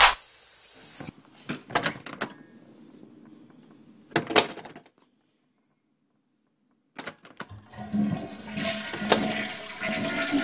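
A few clicks and knocks, then a toilet flushing, its water rushing near the end.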